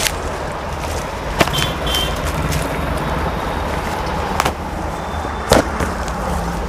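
Plastic packing and cotton suit fabric rustling, with a few sharp crackles, as a folded suit piece is taken out of its packet and unfolded, over a steady low rumble.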